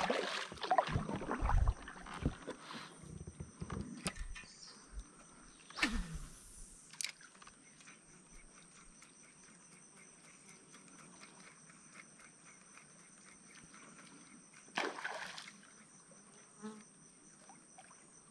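Steady high-pitched drone of insects, two even tones held throughout. A few low thumps and a falling swish come in the first several seconds, and a short rustle a little before the end.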